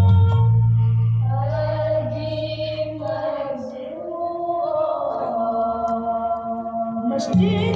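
Music with sung vocals. The bass drops out about three seconds in, leaving a long held, wavering vocal line, and the full backing comes back near the end.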